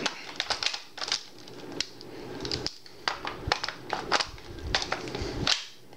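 Irregular metal clicks and scrapes as the barrel of a vz. 59 machine gun is pushed and twisted against the receiver, its locking teeth catching instead of seating.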